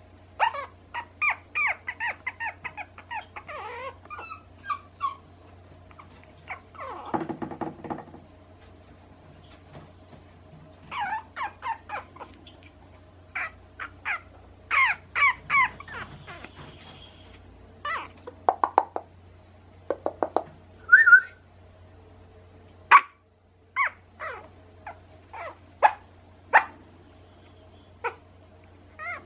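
One-month-old black-and-tan puppy giving many short, high-pitched squeaks, yips and whimpers in quick clusters.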